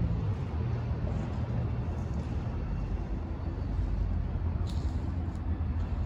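Street traffic: cars driving past at a crossing over a steady low rumble.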